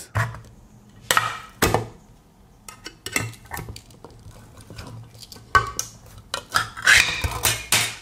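Metal clicks and scrapes as the can opener hook of a Victorinox Swiss Army knife levers up the ring-pull tab of a tin can and the lid is torn off. A denser run of scraping and tearing comes near the end.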